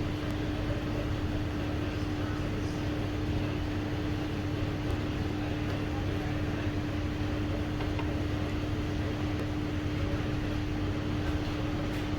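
Steady mechanical hum with one constant mid-low tone, unchanging throughout.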